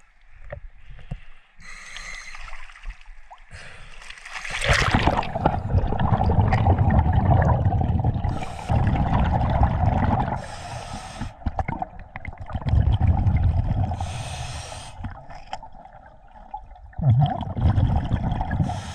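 Scuba diver breathing through a regulator underwater: a sharp hiss on each inhalation, then a long rumbling burble of exhaled bubbles, repeating every few seconds. The bubble rumble starts about four seconds in, as the diver goes under.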